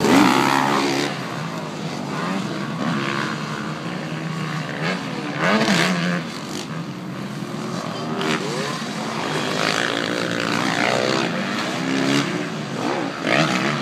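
Several motocross dirt bike engines revving on and off the throttle, their pitch repeatedly climbing and dropping back as they shift through the gears.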